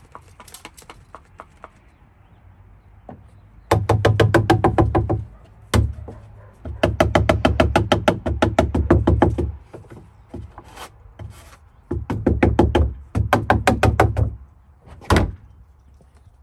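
Background music with a quick, even percussive beat over pitched tones, coming in loud phrases with short breaks between them.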